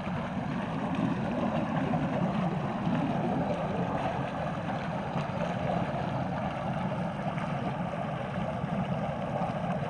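Water welling up under pressure from underground into shallow floodwater, a steady churning rush. The onlooker takes the source for a leaking city water line at its shut-off valve.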